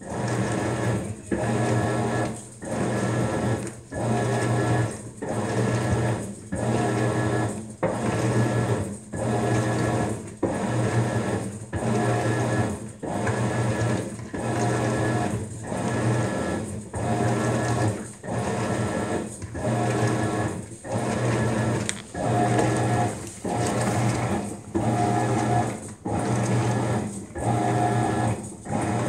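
Maytag MVWX655DW1 top-load washer agitating a load of dish towels in deep water: the drive motor hums through back-and-forth wash strokes about once a second, each stroke a steady whir with a short pause between.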